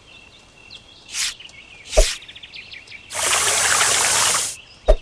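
Cartoon sound effects over a faint chirping insect-and-bird ambience: a short swish, a knock about two seconds in, then a garden hose spraying water for about a second and a half.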